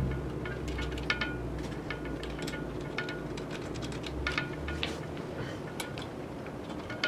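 Small brass bells hanging from a Turkish crescent's brass bell cones jingling and clinking lightly as the cone is handled and fitted onto the wooden shaft, with scattered small metal clicks.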